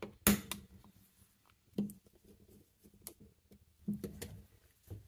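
Small plastic flashlight charging case being handled and pressed back together: a handful of separate sharp clicks and knocks, the loudest just after the start, with others spread through the rest.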